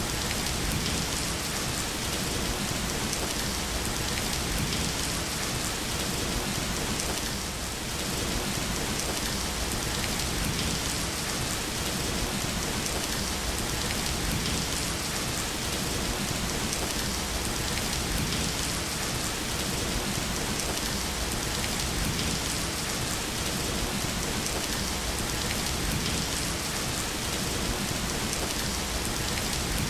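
Steady rain falling on a surface, a continuous even hiss of drops with no letup.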